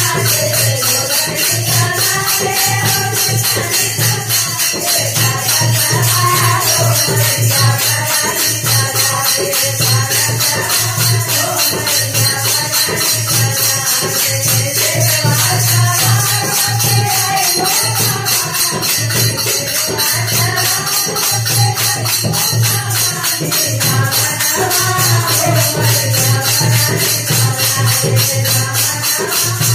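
A woman singing a Hindu devotional bhajan to the Mother Goddess into a microphone, with a fast, steady jingling beat from hand percussion under the melody.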